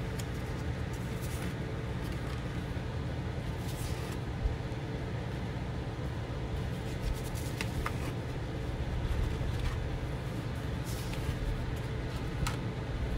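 Painted paper cards being moved and laid on a table: a few light paper rustles and taps over a steady low hum.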